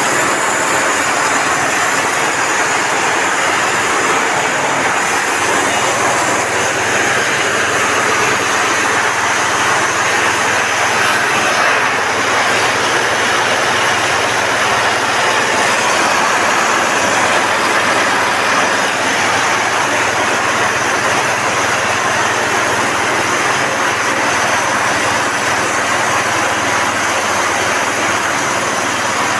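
Corn crusher (disk mill) running steadily while grinding corn, a loud, even machine noise with a faint steady hum underneath.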